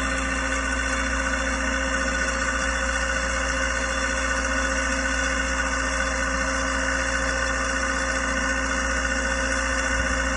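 Skid-mounted three-drum recovery winch's drive running steadily, a constant mechanical hum with a steady whine over it that does not change in pitch.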